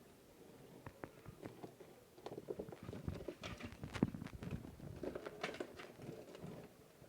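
Quails moving about and pecking, making a quick, irregular run of small taps and scratches that grows busier after the first second.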